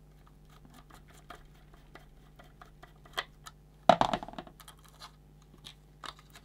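Screwdriver turning a small screw in a multimeter's metal shield, with faint scratching clicks, then a sharp clack about four seconds in as the screwdriver is put down on the bench. Near the end, light clicks of the thin metal shielding plate being handled.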